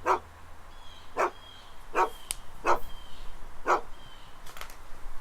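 Dog barking: about five short barks, roughly a second apart.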